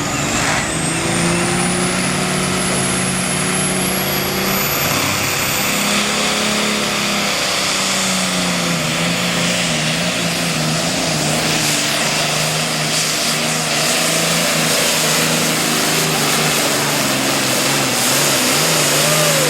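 Super Farm pulling tractor's turbocharged diesel engine running hard under full load through a pull, with a thin high whistle rising over the first six seconds. The engine has had a flutter that comes in and out. The sound cuts off suddenly at the end.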